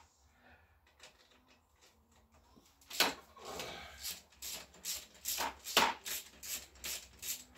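Hand tool working at the exhaust fixings of a Honda Vision scooter: a few faint knocks, then from about three seconds in a run of short, sharp clicks, about three a second.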